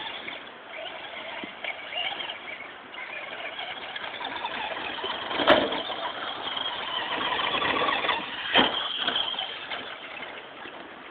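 Traxxas remote-control short course truck running: a rushing noise with a faint high whine that rises and falls. Two sharp knocks about three seconds apart break in, the first one the loudest.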